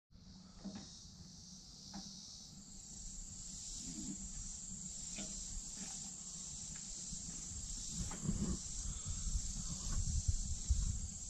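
Steady, high-pitched insect chirring outdoors, growing fuller about two and a half seconds in, over a low rumble with a few faint knocks.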